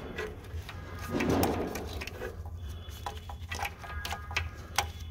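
Gloved hands working a switch bracket and hardware inside a forklift's frame: scattered small clicks and knocks, with a short louder rustle about a second in.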